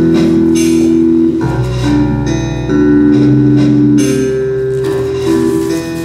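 Instrumental music: held chords that move to new notes every second or so, with a few sharp struck onsets.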